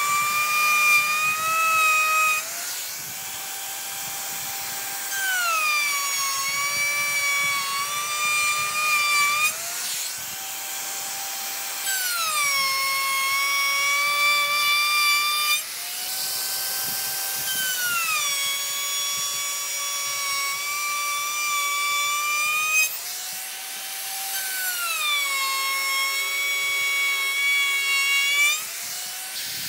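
DongCheng DMR02-12 electric router cutting a series of grooves across a wood board. Its high motor whine drops in pitch and grows louder as the bit bites into each pass, then climbs back between passes, about five cuts in a row.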